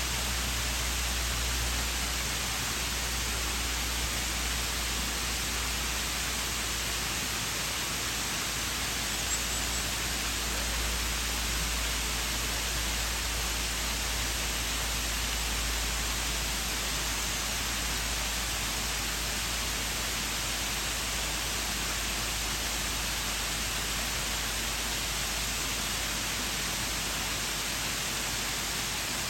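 Waterfall pouring: a steady, unbroken rush of falling water with a low rumble underneath.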